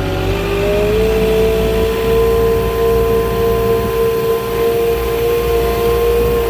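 Moffett truck-mounted forklift running, its engine and hydraulics giving a steady high whine that rises in pitch during the first second and then holds, over a low engine rumble.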